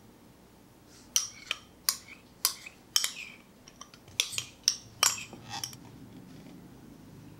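A spoon clinking and scraping against a small glass bowl and the rim of a stainless steel mixing bowl while mustard is scraped out: about ten sharp taps starting about a second in and stopping a little before six seconds.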